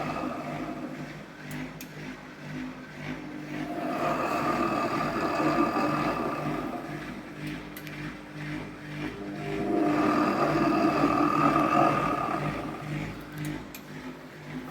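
AEG Öko Lavamat 4100 washing machine spinning, its drum noise swelling and fading about every six seconds over a pulsing low hum. The roar comes from worn drum bearings, which the owner calls bad.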